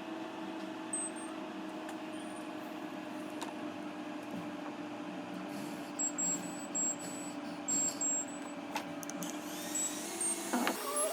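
Steady whirring hum of a small electric fan or motor, with a run of short high-pitched beeps about six to eight seconds in.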